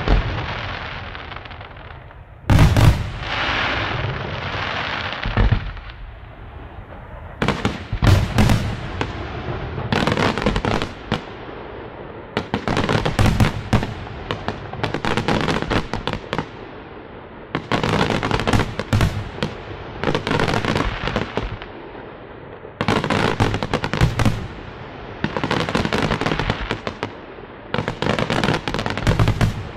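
Aerial fireworks display by Luigi Di Matteo Fireworks: clusters of loud shell bursts every few seconds, with dense crackling and a fading hiss between the volleys.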